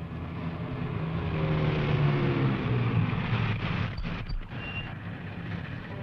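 Land Rover engine running as the vehicle drives up, its revs swelling and then falling away as it slows to a stop. A couple of short clicks about four seconds in.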